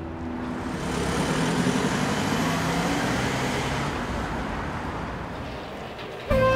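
Car driving on a road: an even engine and tyre noise that swells and then fades, cut off suddenly near the end.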